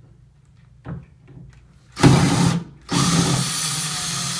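Power drill/driver unscrewing a door knob's mounting screw: a short run about two seconds in, then a longer steady run.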